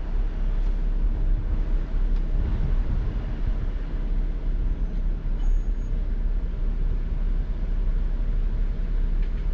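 Low, steady rumble of Jeep engines crawling at low revs, heard from inside a Jeep cab.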